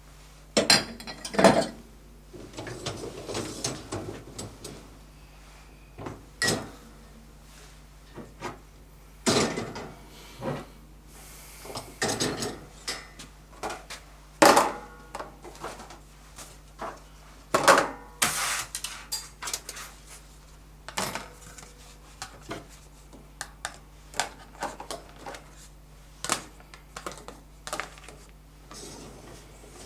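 Dishes and cutlery being loaded into a dishwasher's racks: irregular clinks and clatters of crockery and utensils, some sharper and louder than others.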